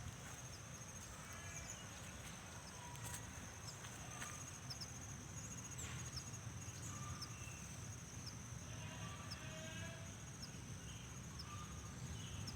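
Insects trilling steadily in a high, unbroken band, with scattered short bird chirps and calls over a low background rumble.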